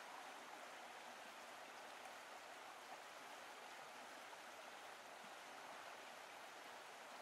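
Faint, steady rushing noise, even and unchanging, with no engine note in it.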